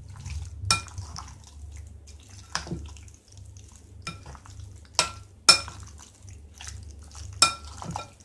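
Metal spoon stirring soya chaap pieces through a thick curd-and-masala marinade in a glass bowl, with several sharp, ringing clinks of the spoon against the glass. A low steady hum runs underneath.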